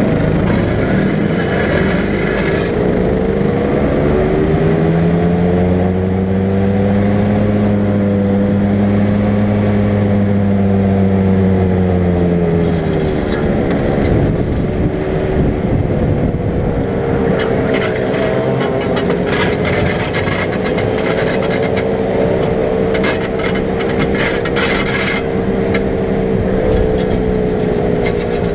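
Go-kart engine running at low, fairly steady speed, its pitch slowly rising and falling, as a kart with a broken throttle linkage is pushed back to the pits. There is rattling toward the end.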